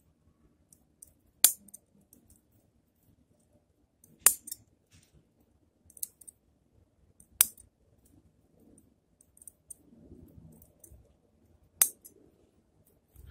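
Bonsai shears snipping twigs on a zelkova: four sharp snips a few seconds apart, with fainter ticks and handling between them.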